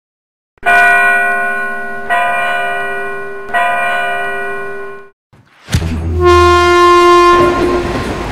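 Logo intro sting: three struck bell chimes, about a second and a half apart, each ringing and dying away. After a brief gap comes a deep booming swell with a held tone that breaks into a rushing whoosh near the end.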